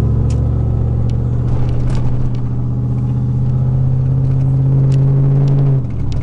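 Chevy Silverado 4.8 L V8 with a partly finished 3-inch exhaust, heard from inside the cab while cruising: a loud, steady exhaust drone that creeps slightly up in pitch, with a few light clicks. Near the end the drone drops away suddenly.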